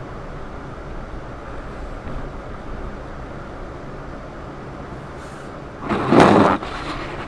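Car driving, with steady engine and road noise. About six seconds in comes a loud, short burst of noise lasting under a second.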